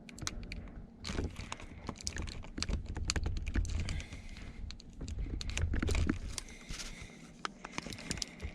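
Flathead screwdriver prying at the plastic start/stop push-button and its dash surround: irregular sharp clicks and scrapes of metal on plastic, with low handling rumble through the middle.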